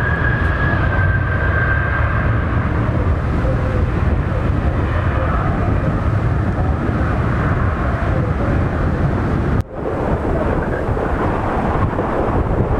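Twin rear-mounted turbofans of a CRJ regional jet at takeoff thrust as it lifts off and climbs away: a deep, steady jet noise with a high whine that fades over the first couple of seconds. About three-quarters through the sound cuts off abruptly and gives way to wind buffeting the microphone with more distant jet noise.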